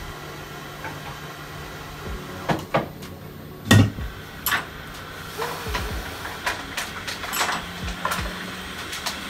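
Scattered clicks and light knocks of small tools being handled on an electronics repair bench, with one sharper knock a little before halfway, over a steady low hum.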